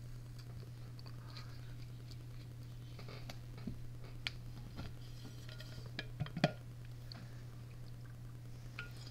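Scattered small metallic clicks and taps of a wrench and fittings being worked on a tractor's hydraulic pump, the loudest a quick double knock a little past six seconds in, over a steady low hum.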